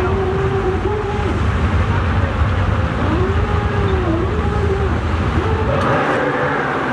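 Several racing jet skis running in shallow water on the start line, their engines revving up and down. About six seconds in they go to full throttle together and the sound rises in pitch.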